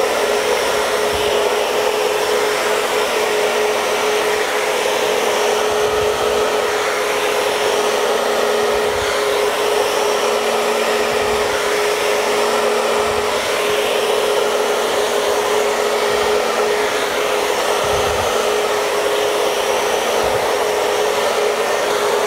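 Hair dryer with a diffuser attachment running steadily: an even rush of air with a constant whine from its motor, used to scrunch-dry permed hair.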